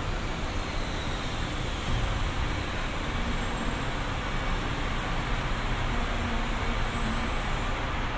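SFO AirTrain automated people-mover car pulling into the station platform and coming to a stop behind the platform screen doors: a steady rolling and running noise.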